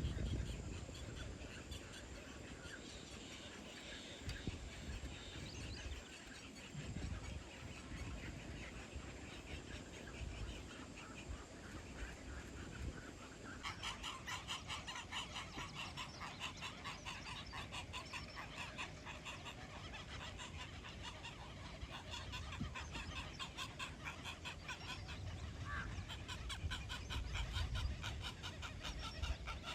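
Birds calling, with a fast, even pulsing chatter that starts about halfway through and keeps going.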